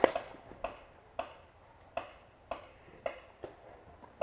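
Paintball markers firing single, spaced shots: about seven sharp pops, roughly one every half second to second, fainter than the rapid strings of fire just before and after.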